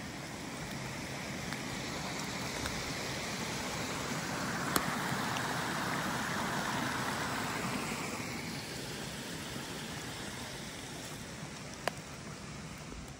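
Fast-flowing river in full flow: a steady rush of water that grows louder in the middle and then eases off. Two sharp clicks stand out, one near the middle and one near the end.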